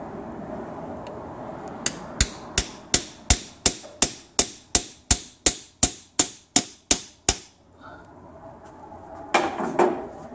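A hammer tapping rapidly and evenly on a screwdriver to drive its tip in behind the tight old rear main seal on the crankshaft, metal on metal, about sixteen sharp strikes at roughly three a second. The tapping stops after about seven seconds, and a short clatter follows near the end.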